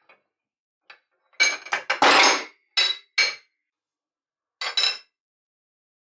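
Metal parts clinking: an angle grinder's bevel gear and gear housing being handled and set down on steel plates. There is a run of sharp, ringing clinks about a second and a half in, two more around three seconds, and a last one about five seconds in.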